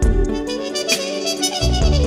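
Instrumental background music: a melody over low bass notes, with some percussion.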